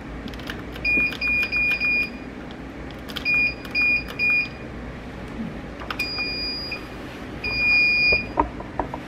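Digital perm machine beeping: a high electronic tone in a quick group of four, then three, then two longer beeps, the last the loudest. Light clicks of the roller clamps being handled sit between and after the beeps.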